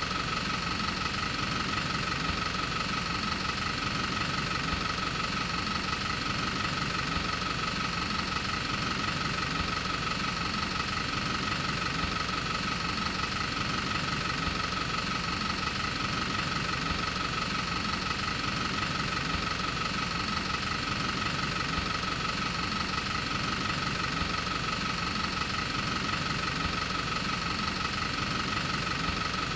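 Movie film projector running: a steady mechanical whir with a high whine and a fast, even clatter of the film being pulled through, unchanging throughout.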